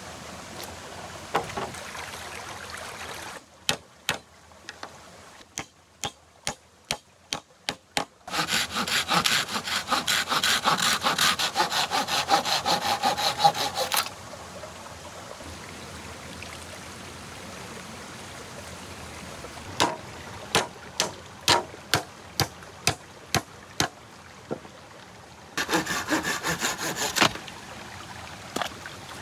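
Wood being sawn by hand in two spells, a long one of about six seconds in the middle and a short one near the end. Before each spell comes a run of sharp knocks, about two a second.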